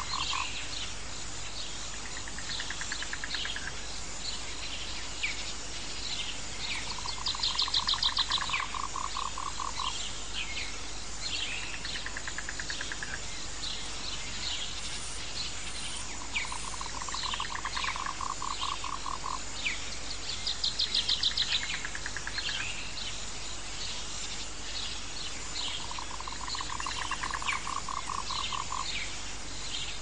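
Jungle nature ambience: frogs and birds calling over a steady high insect drone. A pulsed, frog-like trill comes back about every nine seconds among many short bird chirps, and a louder, rapid high trill sounds twice.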